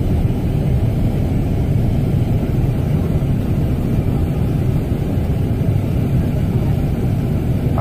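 Steady low rumble of engine and road noise inside a moving vehicle's cabin as it drives around a busy roundabout.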